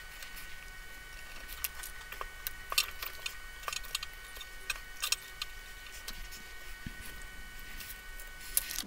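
Light, irregular metallic clicks and ticks of steel spokes knocking against the rim and hub as a Brompton rear wheel is laced by hand.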